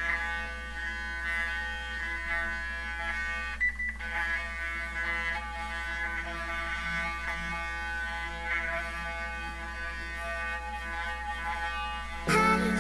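Steady electric buzz of a Clarisonic Mia Smart sonic facial cleansing brush working over the skin, with a brief break about four seconds in, under background music.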